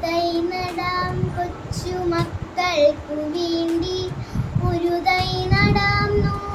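A young girl singing a Malayalam poem in a child's voice, in long held notes that step up and down.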